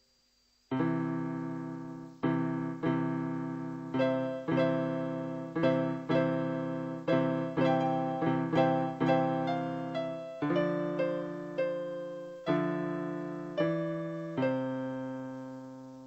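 Background piano music: a keyboard playing a slow run of struck chords, each dying away before the next.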